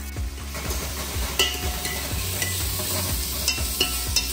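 Chopped red onion sizzling as it fries in hot oil in a stainless steel pot, stirred with a steel ladle that scrapes the pot and clicks against it a few times, mostly near the end.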